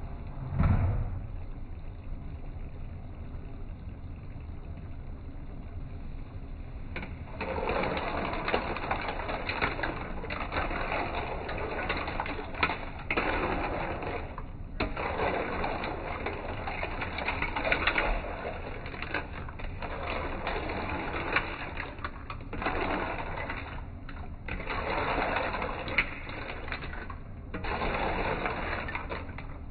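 Clams sautéing in a non-stick wok, stirred with a spatula in bursts from about seven seconds in, the shells clattering against each other and the pan. A dull thump comes near the start.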